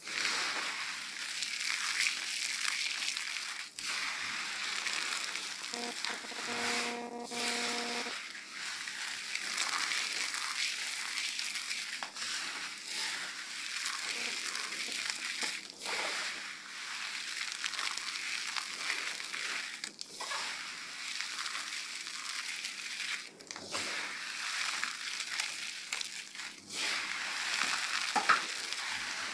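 Hands squeezing and crumbling a heap of dry cut soap pieces dusted with cornstarch: continuous crunching and crackling, with a few brief pauses between handfuls.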